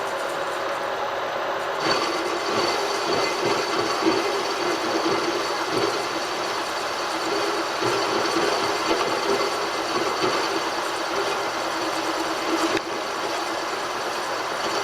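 Machine tool running steadily through a boring cut in metal, a finishing pass to open a bore to size, with a thin high whine joining in about two seconds in.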